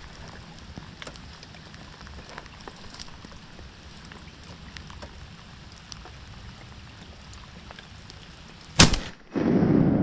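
Steady rain pattering with scattered drop ticks, then a single loud shotgun shot near the end, followed about half a second later by a loud, rushing noise.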